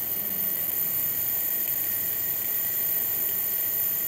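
Argon plasma jet from a high-voltage, high-frequency Tesla supply discharging onto water: a steady hiss with thin, high-pitched whines over it.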